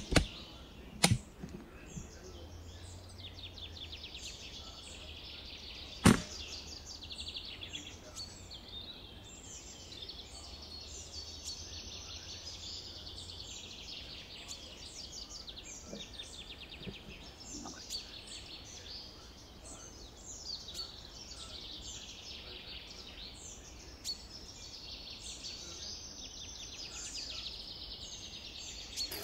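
Songbirds chirping and trilling continuously. About six seconds in comes a single sharp crack, the loudest sound here: a shot from the .177 Brocock Bantam Sniper HR pre-charged air rifle. A smaller sharp click comes about a second in.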